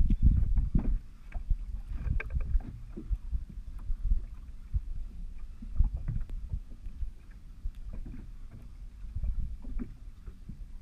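Water slapping against the hull of a small boat drifting at sea, with wind rumbling on the microphone and light ticks and knocks scattered throughout.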